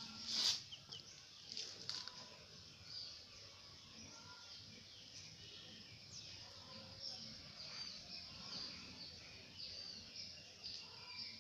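Small birds chirping and twittering, many short high calls scattered throughout, with a louder call about half a second in.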